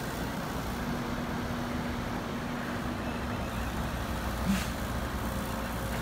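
Heavy diesel machinery, an excavator and a dump truck, running steadily with an even engine drone.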